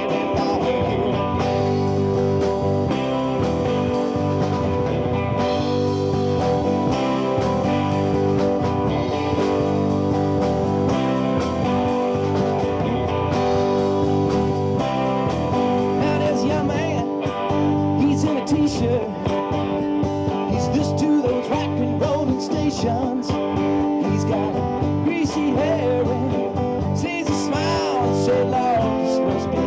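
Live band playing a rock song: drum kit, electric and acoustic guitars, and a man singing into a microphone at times.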